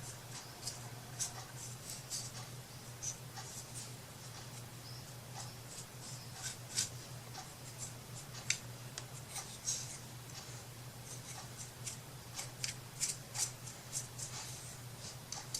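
Light, irregular clicks and snips of hands working small craft pieces at a table, over a steady low hum.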